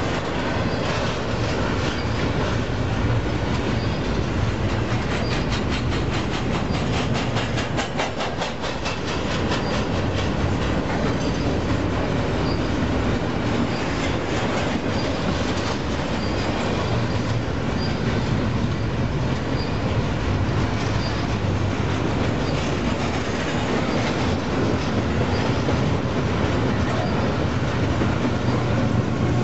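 Double-stack container train's well cars rolling past: a steady rumble and clatter of steel wheels on the rails, with a stretch of quick, evenly spaced clicking several seconds in.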